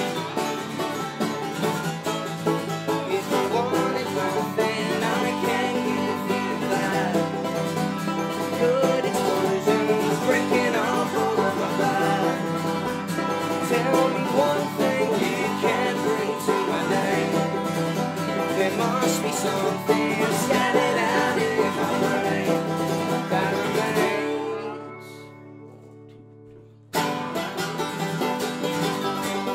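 Acoustic roots band playing: a resonator guitar played with a slide, a strummed acoustic guitar and a banjo. About 24 seconds in, the band stops and the last notes ring out and fade. About three seconds later, all the instruments come back in together at once.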